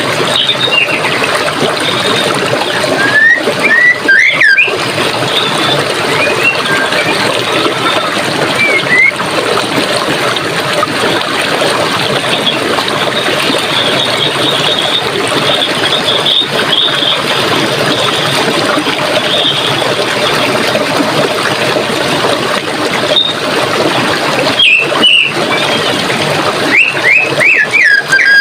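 Forest stream water running steadily, with birds chirping now and then over it: short sliding calls, a few around three to four seconds in, again near the end.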